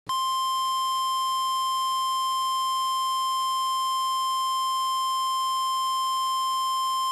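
NOAA Weather Radio 1050 Hz warning alarm tone: one steady, unbroken high tone. It signals that a weather warning message is about to be broadcast.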